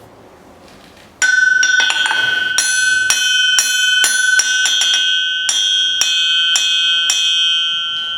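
Hammer striking the face of a 596 lb German knifemaker's anvil, starting about a second in: a dozen or so blows, roughly two a second, each followed by a clear, bell-like ring that carries on between blows, the sign of a solid, lively steel anvil.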